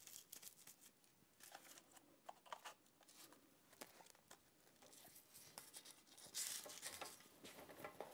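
Faint rustling and small clicks of a Velcro strap being handled and wrapped around a wooden bed frame, with a short tearing rasp about six and a half seconds in.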